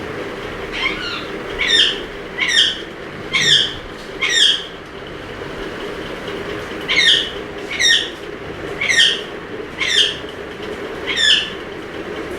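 Indian ringneck parrot giving loud, sharp screeching calls, each falling in pitch, about one a second. There are two runs of about five calls with a short pause between them, over a steady low hum.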